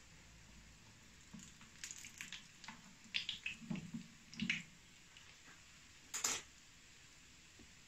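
Fritters frying in a small pan of hot oil, with scattered crackles, light taps and clicks as they are handled in the pan, mostly in the first half, and one sharp click about six seconds in.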